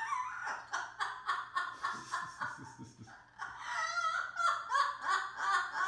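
Parrot in its cage calling: a rapid run of short, clucking calls, several a second, for the first half, then longer wavering calls.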